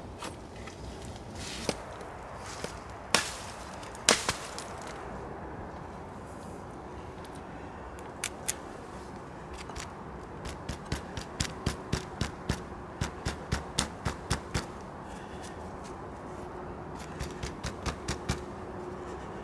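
Kershaw Camp 10 machete chopping into a wooden branch: a few hard strikes in the first four seconds, then a quick run of lighter chops, about two or three a second, from about ten to fifteen seconds in, and a few more near the end.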